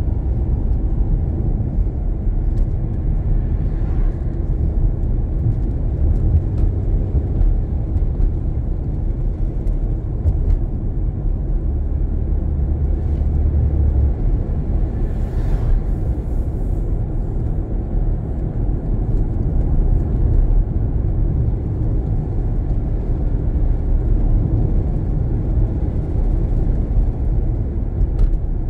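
Car driving along at moderate speed: a steady low rumble of engine and tyres on the road. About halfway through, a brief swish as an oncoming car passes.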